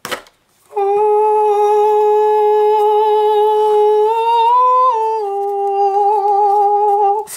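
A person humming one long held note. The pitch rises a little about four seconds in, then settles back.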